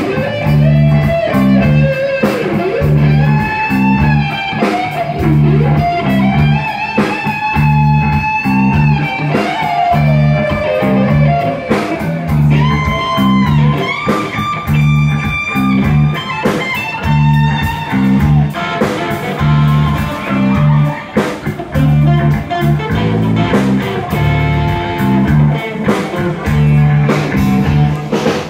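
Live rock band playing, led by a Stratocaster-style electric guitar soloing in long held notes that bend up and down, over a steady bass and drum-kit beat.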